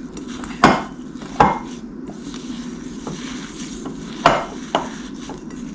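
A utensil knocking against a mixing bowl while stiff almond-flour dough is beaten and stirred: four sharp knocks, two close together near the start and two more near the end, over faint scraping.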